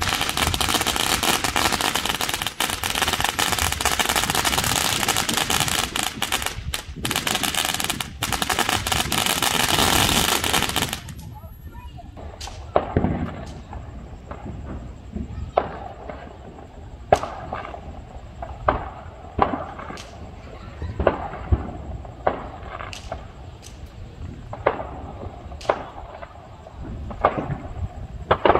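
Neighbourhood Fourth of July fireworks. For about the first eleven seconds there is a loud, dense run of rapid crackling and popping, which stops abruptly. It is followed by separate sharp bangs, roughly one every second, each with a short echoing tail.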